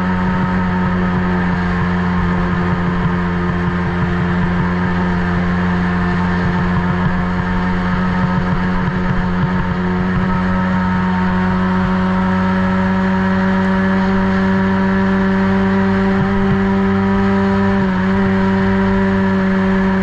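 Kids' ATV engine running at steady revs, heard close up from the machine carrying the camera, its pitch holding nearly constant with a brief dip near the end.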